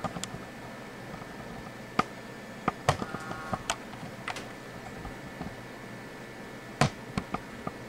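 Scattered light clicks and knocks, about a dozen spread irregularly, the sharpest about two seconds and near seven seconds in, with a brief ringing tone just after one of them around three seconds in.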